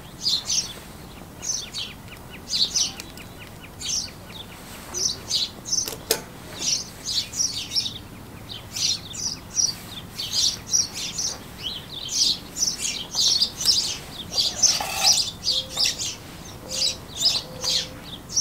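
Small birds chirping and twittering in quick, irregular runs of high notes, with one sharp click about six seconds in.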